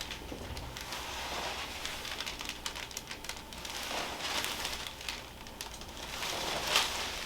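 Soft rustling noise dotted with faint crackling clicks, with a brief louder swell of noise near the end.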